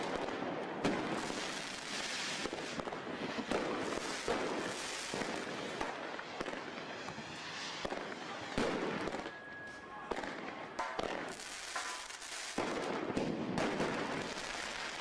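Fireworks and firecrackers going off in rapid, overlapping bangs and crackles, with a short whistle about ten seconds in.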